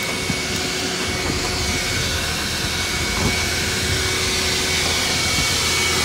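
Car-wash vacuum running steadily: an even rushing hum with a thin, steady high whine.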